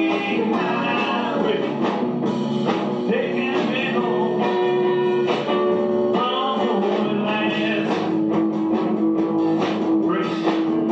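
Recorded rock music led by guitar, playing steadily throughout.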